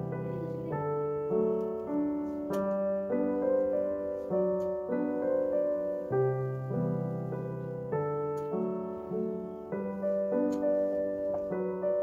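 Solo piano background music, unhurried, with notes and chords changing every half second to a second.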